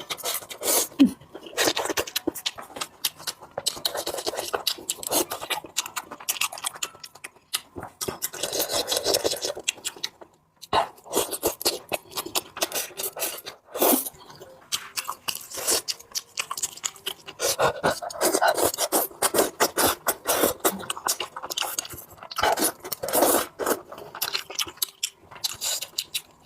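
Close-miked eating sounds from a bowl of spicy pork rice: a spoon scraping the bowl and chewing, in quick, uneven bursts with brief pauses.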